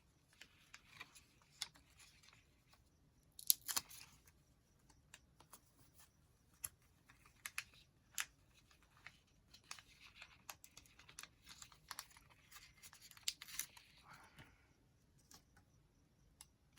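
Quiet paper handling on a craft desk: rustling with scattered small clicks and taps, and louder flurries about three and a half seconds in and again from about ten to fourteen seconds.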